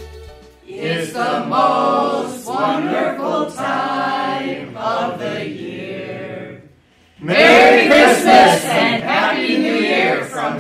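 A group of voices singing without accompaniment, in sung phrases that break off briefly about seven seconds in and come back louder.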